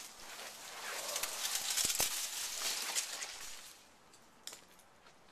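Dense crackling, rustling noise that stops about four seconds in, leaving a faint, quiet stretch with a light tick or two.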